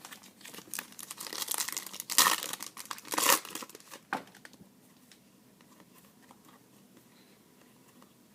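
A trading-card pack's foil wrapper being torn open and crinkled: a run of rustling with two loud rips, stopping about halfway through.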